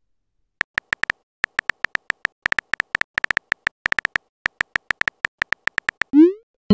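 Texting app's keyboard typing clicks: a quick, uneven run of short identical ticks, one per keystroke. Near the end comes a short rising swoop as the message is sent.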